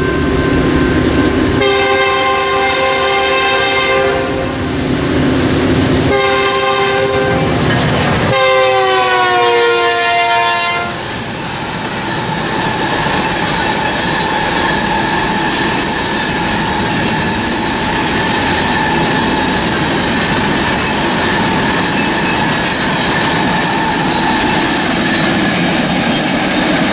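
BNSF freight train's locomotive air horn sounding three long blasts, the last dropping in pitch as the locomotive goes by. Then the steady sound of covered hopper cars rolling past, with wheel clatter on the rails.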